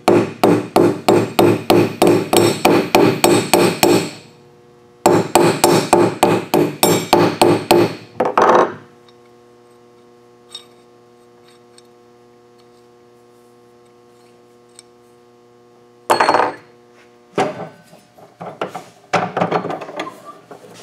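Hammer striking a steel punch held against a C-clamp's screw on a steel block. The blows are rapid and even, about five a second, in two runs of about four seconds each with a short break between. Near the end come a few separate metal knocks and clunks.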